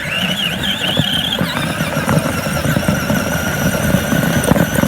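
A firework burning with a loud, steady whistling shriek over a rushing, crackly hiss. The whistle wavers at first, then settles into one high tone.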